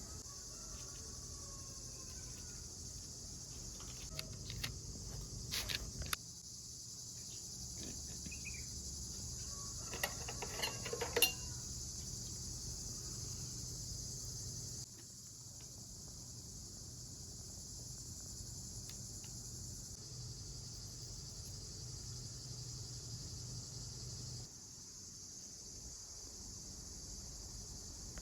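Steady chorus of crickets chirring, with a few short clatters and knocks about four to six seconds in and again around ten seconds in.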